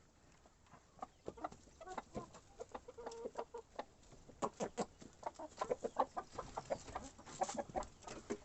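A flock of chickens clucking in short, overlapping calls, with sharp clicks among them. The clucking gets busier about halfway through.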